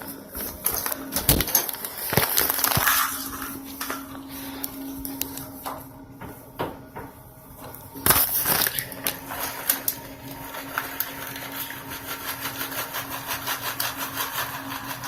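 Household objects being handled and set down: irregular knocks, clicks, scraping and rustling, with one sharp knock about eight seconds in, over a steady low hum.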